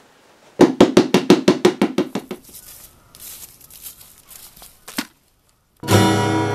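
A rapid run of about a dozen sharp percussive knocks, fading over a second and a half. After a short silence, folk-style background music with sustained notes starts near the end.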